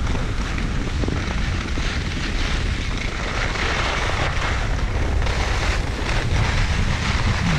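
Wind buffeting the camera microphone, a steady loud rush with a deep rumble underneath, as from moving fast on skis.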